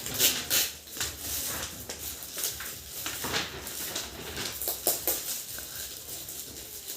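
Packaging being handled and torn open: irregular crackling and rustling of paper or plastic wrapping with small clicks.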